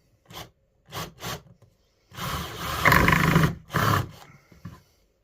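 Cordless screw gun driving a screw into wood: a few short bursts, then a longer run of about a second and a half that grows louder partway through, and one more short burst near the end.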